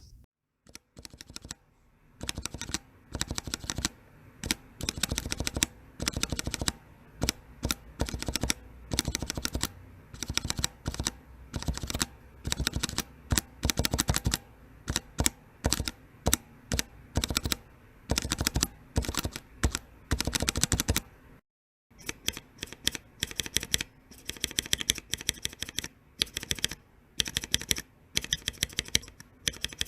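Typing on a mechanical keyboard with Cherry MX switches: quick runs of key clicks in short bursts. The clicking stops for a moment about two-thirds of the way through, then starts again.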